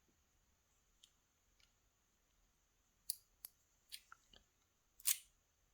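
Small, sharp metal clicks and taps from handling a Yale 2000 Plus lock cylinder and its tools as it is being taken apart. They are scattered through the second half, the loudest about five seconds in.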